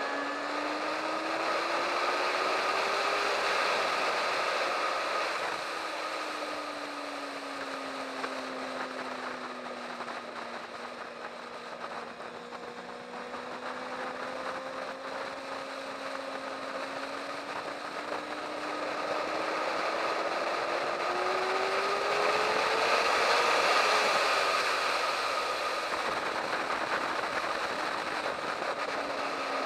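Sport motorcycle engine heard from on the bike at speed, the note climbing for the first few seconds, sinking slowly through a long stretch, then climbing again past twenty seconds in and falling off near the end, over a steady rushing noise.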